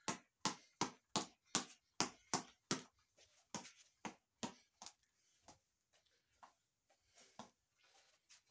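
A boxing reflex ball on a headband's elastic cord being punched: quick, even smacks about two and a half a second, turning quieter and more scattered after about three seconds.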